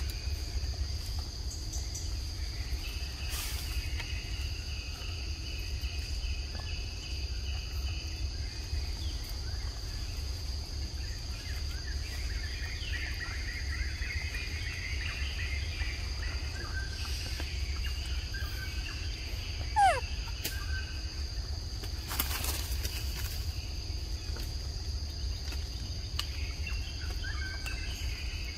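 Forest ambience: a steady high-pitched insect drone with scattered bird chirps. A single short, sharp rising call stands out about twenty seconds in, followed shortly after by a brief rustling burst.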